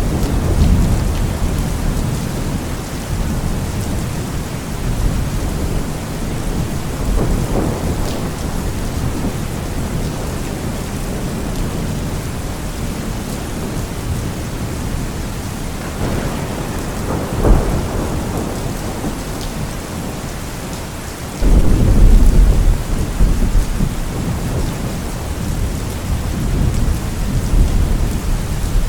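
Steady heavy rain with thunder rumbling throughout. A loud thunderclap breaks in about three quarters of the way through, then rolls on.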